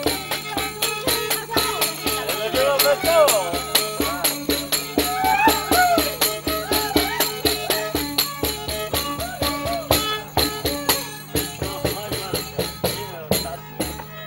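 Traditional Polish folk wedding music: a fiddle playing a wavering melody over the fast, steady beat of a frame drum with jingles. The music grows quieter over the last few seconds.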